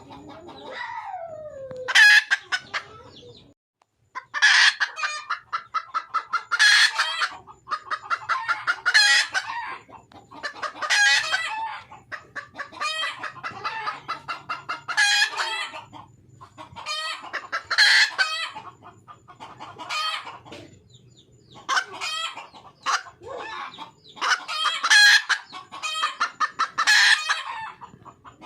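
Red junglefowl hen calling: a repeated series of rapid, pulsing cackles, a burst about every two seconds. It is the call of a wild hen seeking a mate.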